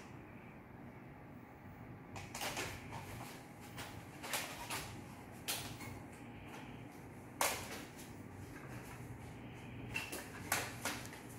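Plastic audio cassette cases clicking and clacking against each other as they are picked up and stacked, about ten sharp clicks at irregular intervals.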